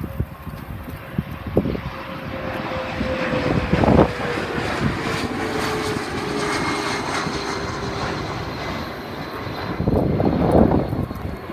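Jet airliner's engines passing, a steady rush with a tone that slowly falls in pitch. Wind gusts buffet the microphone, hardest about four seconds in and again near the end.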